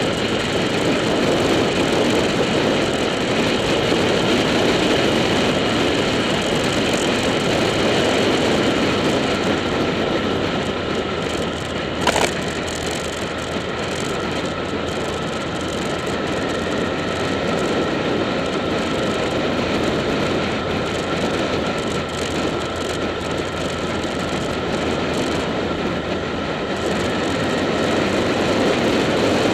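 Motorcycle riding at road speed: a steady engine drone under heavy wind rush on the on-board action camera's microphone. A single sharp click about twelve seconds in.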